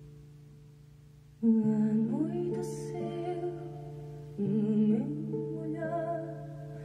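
Recorded music played back over a pair of Tannoy Mansfield loudspeakers driven by a 300B tube amplifier: guitar accompanying a singing voice. A held note fades away, then fresh chords come in about a second and a half in and again past the middle, with the voice sliding up in pitch.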